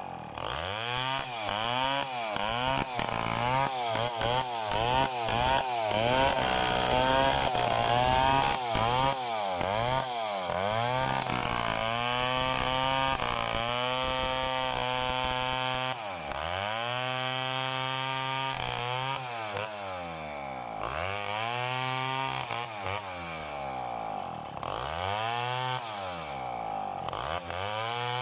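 TECOMEC chainsaw ripping lengthwise through a coconut log, freehand milling it into boards. The engine pitch dips and recovers about once a second as the saw loads up in the cut and frees again, then holds steadier for a stretch in the middle.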